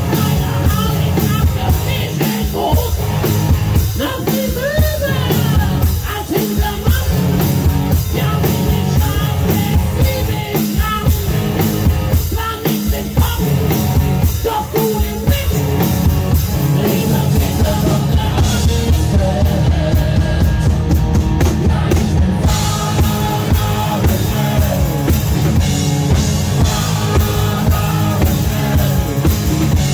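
A rock band playing a song, with singing over a driving drum kit.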